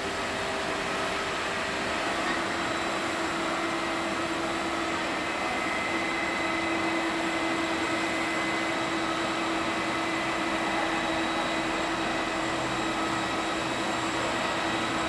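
Steady whine and rush of a twin-engine Japan Airlines jet's engines or APU as the airliner is pushed back by a tug. A steady hum in it grows stronger about six seconds in.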